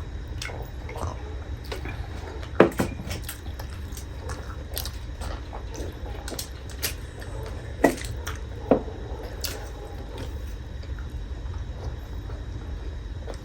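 Close-up eating sounds: wet, squishy chewing of juicy buff momo with scattered small clicks and three sharper knocks, over a steady low hum.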